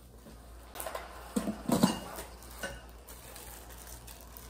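A handful of metal clinks and knocks as hollow chrome tubing is handled, bunched together in the first half with the loudest a little under two seconds in.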